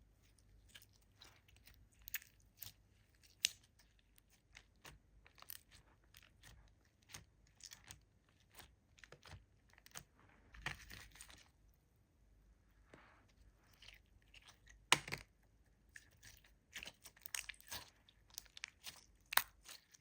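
Glitter slime being squished and poked, making irregular sticky clicks and crackling pops, with one much louder pop about fifteen seconds in.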